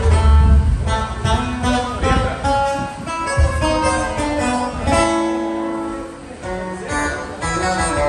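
A live band playing: an acoustic guitar strummed over electric bass guitar notes.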